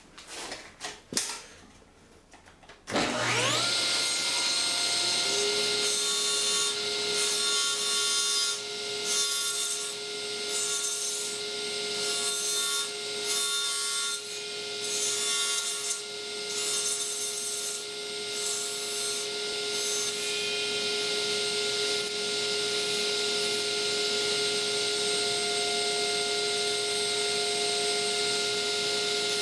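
Table saw with a few clicks first, then the motor starting about three seconds in with a rising whine that settles to a steady running pitch. For roughly the next fifteen seconds the blade cuts into a wooden disc turned on a pin jig, with the sound surging and easing unevenly; after that the saw runs on steadily with no cutting.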